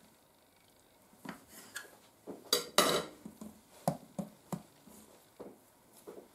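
A kitchen knife cutting through dough and knocking on the worktop, with a run of irregular sharp knocks and a longer clatter near the middle, then softer taps as the dough pieces are handled on the counter.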